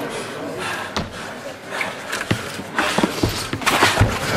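Two fighters grappling on a hard gym floor: bodies and shoes scuffling and knocking against the floor, with a run of thuds in the second half.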